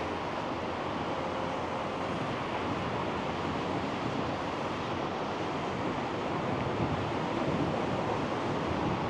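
Steady rushing noise of a storm's wind and rain.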